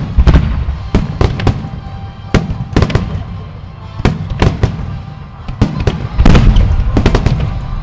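Aerial fireworks bursting in quick succession: a string of sharp bangs, several a second at times, over a deep rumbling boom that echoes between them, heaviest near the end.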